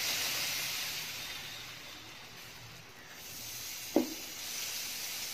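Thick adai lentil batter sizzling on a hot non-stick dosa pan as it is poured and spread with a ladle; the hiss eases a couple of seconds in and builds again as the batter is spread. One brief knock about four seconds in.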